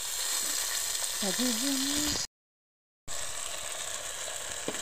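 Onions, green capsicum, ginger and garlic sizzling in hot cooking oil in an aluminium pot, a steady frying hiss. The sound cuts out completely for under a second in the middle, then the sizzling resumes.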